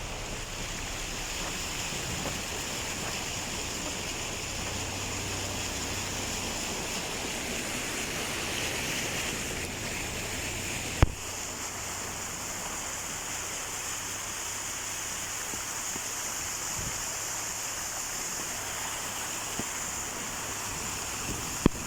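Rushing floodwater, a steady noise with no pitch to it. About halfway through there is a sharp click and the noise changes slightly in character.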